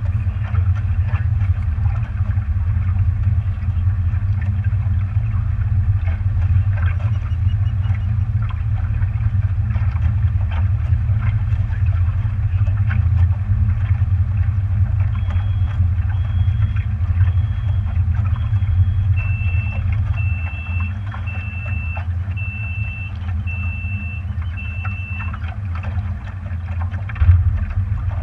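Motorboat under way on open water: a steady low drone of engine, hull and wind. About halfway through, a run of short electronic beeps at one pitch starts. A second run at a slightly lower pitch joins it and carries on after the first stops, each beep roughly a second apart.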